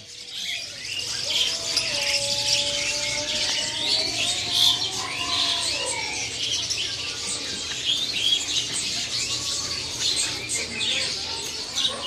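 Many caged songbirds chirping and twittering at once, a dense, continuous chorus of short high calls and trills.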